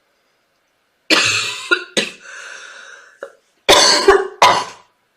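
A girl coughing hard. About a second in she coughs twice, then there is a quieter drawn-out breath, then three more coughs in quick succession.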